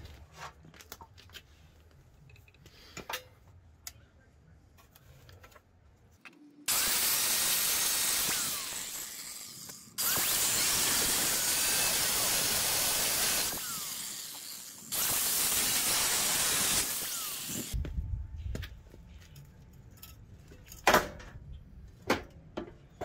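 Angle grinder with a cutting disc cutting through a Ford Ranger's steel frame rail in three runs of a few seconds each, starting about a third of the way in, as it severs the last metal holding the frame together. A few sharp knocks follow near the end.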